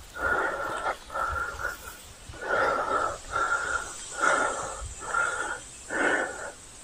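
A man breathing hard after a climb, winded: about four heavy breaths, each a longer breath followed by a shorter one, with a slight whistling wheeze.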